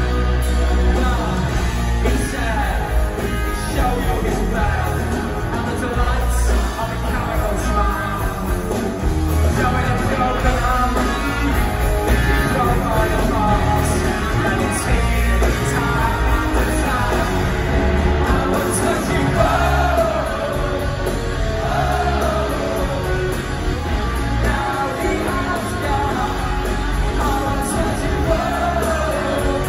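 Rock band playing live with a male lead singer, electric guitars and drums, heard from the audience in a large concert hall.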